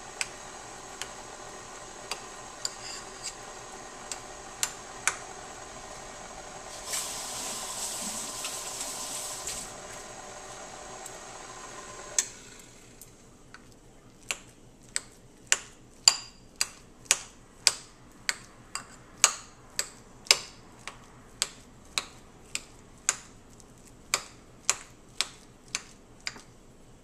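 KitchenAid stand mixer running, its flat beater turning batter in the stainless steel bowl, with a hiss for a couple of seconds partway through; the motor shuts off about twelve seconds in. After that a fork clicks against a bowl about twice a second, mashing banana chunks.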